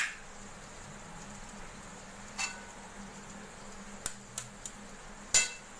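Eggs being tapped on the rim of an aluminium kadai and cracked into it: scattered sharp clinks that ring briefly in the metal pan, three close together about four seconds in and the loudest near the end.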